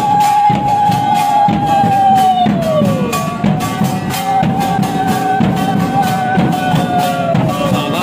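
Conch shells blown in long held notes, each sliding down in pitch as the breath runs out: the first about three seconds in, the second near the end. Underneath is a quick steady beat of a kirtan group's drum and clashing hand cymbals, the conch sounding as the ritual welcome of the group.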